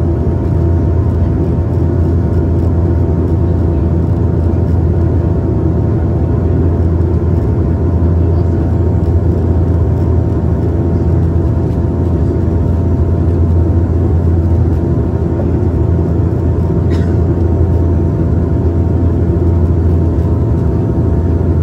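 Steady drone of a Dash 8-400's turboprop engines and propellers inside the cabin next to the wing, on final approach with the landing gear down. A strong low hum carries several steady higher tones above it.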